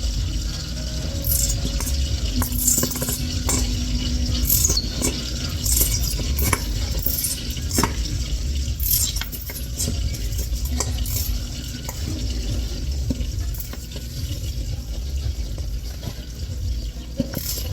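A spoon stirring and scraping in a bowl, with scattered light clicks against the bowl, over a steady low rumble.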